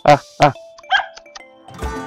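Dogs barking: two sharp barks in quick succession, then a short higher yelp about a second in. Background music comes in near the end.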